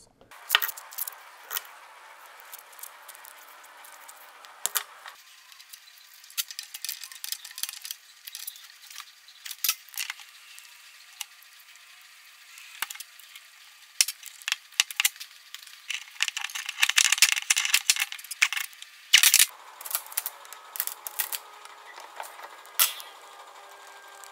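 Scattered, irregular clicks and rattles of small metal hydraulic hose fittings and tools being handled while the connections are made up, with a busier stretch of scraping and clicking about two-thirds of the way through.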